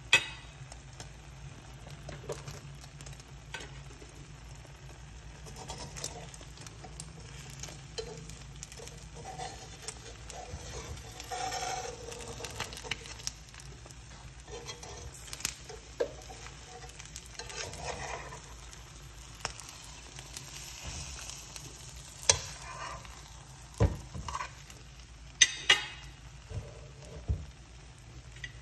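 An omelette sizzling quietly in a nonstick frying pan, with a metal fork clicking and scraping against the pan several times as it lifts the omelette's edge.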